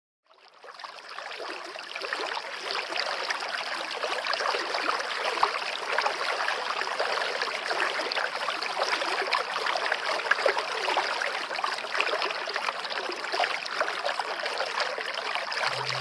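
Shallow stream rushing and splashing over rocks, a steady, even rush of water that fades in over the first two seconds.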